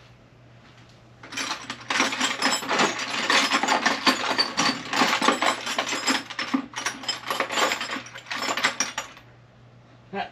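Metal hand tools rattling and clattering for several seconds as someone rummages through a toolbox looking for a pick, over a faint steady hum.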